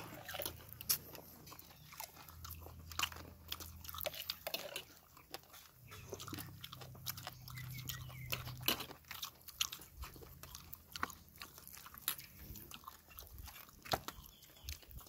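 Close-up eating sounds: chewing, lip smacking and crunching as people eat chicken, fish and rice with their hands, in many short irregular clicks and smacks.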